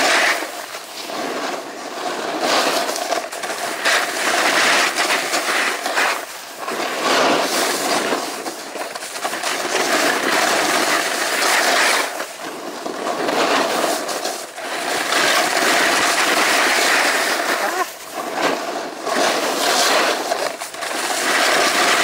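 Snowboard sliding and carving over groomed snow: a rushing scrape from the board's edges that swells and drops every second or two as the rider links turns.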